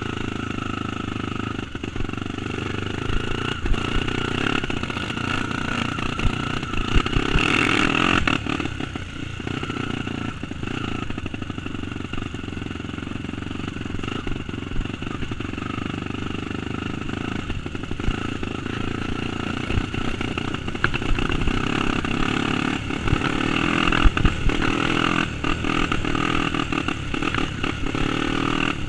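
Single-cylinder trail motorcycle engine running under way, picking up revs about seven seconds in and again near the end, with frequent short knocks and rattles.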